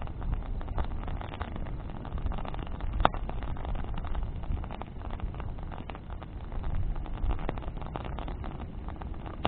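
Wood bonfire crackling, with many small pops and one sharp, louder pop about three seconds in, over a steady low rumble.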